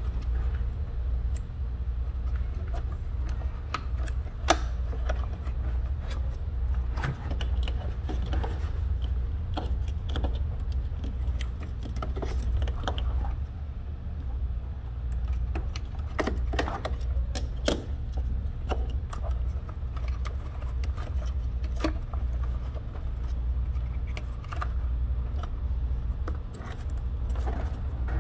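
Plastic wiring-harness connectors and wires being handled and unplugged in an engine bay: scattered small clicks and rattles, one sharper click about four seconds in. A steady low hum runs underneath.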